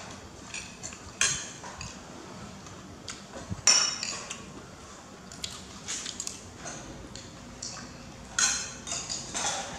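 Metal spoons clinking and scraping against ceramic bowls and plates while people eat, in irregular sharp clinks, the loudest a little under four seconds in.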